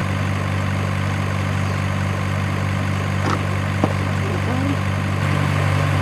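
Steady, unchanging low engine idling drone, like a big truck at idle, with two faint clicks about halfway through.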